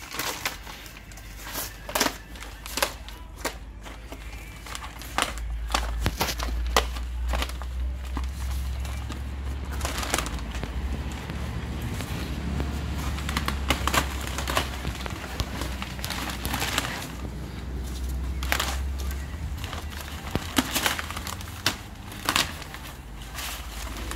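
Polythene sheeting over a pallet of bricks crinkling and crackling as it is cut and peeled back by hand, in irregular sharp crackles. A low rumble runs under the middle part.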